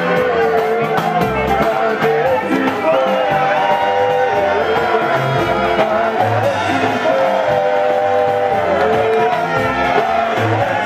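Loud music: held melody lines over a pulsing bass.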